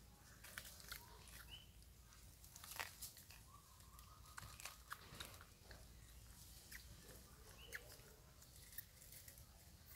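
Faint, scattered crunching and chewing clicks from macaques eating dry noodles, with two short high chirps.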